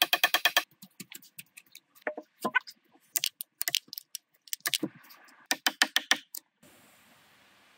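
Hatchet chopping and notching logs: a fast run of sharp wooden strikes at the start, then irregular clusters of blows, some with a short hollow ring. The strikes stop about two-thirds of the way through and a faint steady hiss is left.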